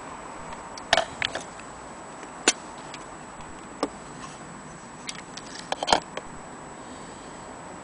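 Irregular sharp clicks and knocks of plastic clock cases being handled and turned in the hand, loudest about a second in, at two and a half seconds and near six seconds, over a steady faint hiss.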